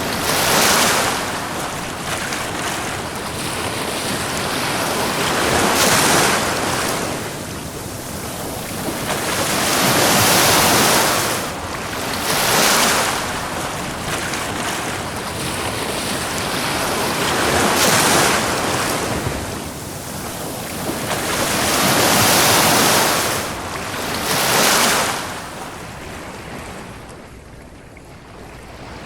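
Ocean waves washing onto a beach. The surf swells and falls back every few seconds, then eases into a quieter lull near the end.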